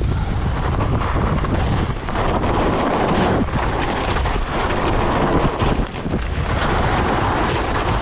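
Wind buffeting the microphone of a skier's camera, with the steady hiss and scrape of skis sliding over packed snow on a downhill run.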